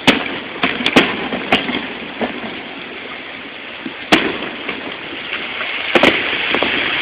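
Fireworks bursting in a show: about half a dozen sharp bangs, the loudest right at the start and about four seconds in, with a quick double bang about six seconds in, over a steady background hiss.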